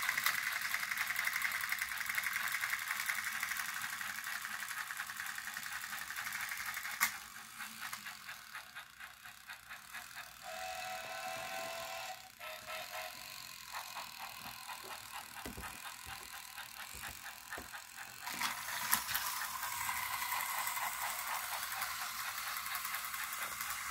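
Battery-powered motorized toy train engines running on plastic track: a steady motor whir with fast, even clicking from the gears and wheels. It drops quieter about seven seconds in, with a brief lower whine a few seconds later, and gets louder again about nineteen seconds in.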